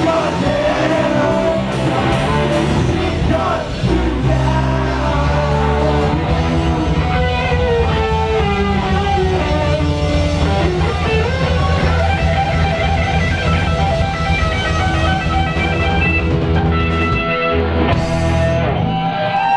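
Live heavy metal band playing loud: electric guitars, bass and a drum kit, with a short break in the low end near the end.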